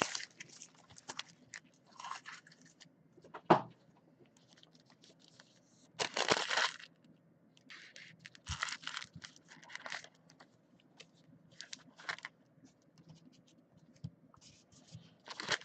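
Foil trading-card pack wrappers being torn open and crinkled in short, irregular bursts, the longest about six seconds in.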